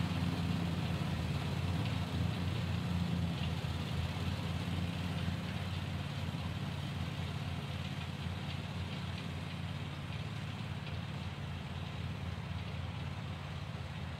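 An engine running steadily, its low hum slowly getting quieter.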